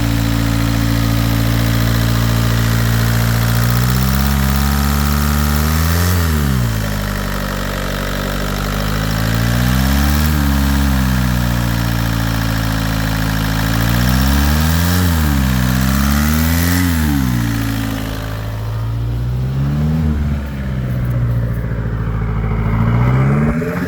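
VW ALH 1.9 TDI four-cylinder turbodiesel running, with upgraded injector nozzles fitted. It idles steadily, then is revved up and let back down about six times.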